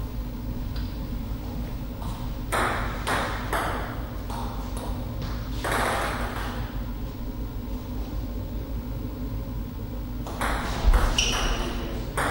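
Table tennis ball clicking as it bounces on the table and is struck with paddles: a few separate bounces about two to five seconds in, then a quick run of hits in a rally near the end, with a short high squeak among them. A steady low hum runs underneath.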